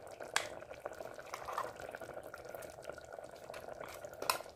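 Curry simmering in a stone pot, a faint steady bubbling, with a couple of light clicks, one near the start and one near the end.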